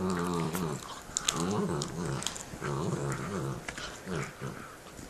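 Small dog growling over a bone in several long, wavering stretches, a guarding growl at the other dog while chewing. Sharp clicks of teeth on bone mix in.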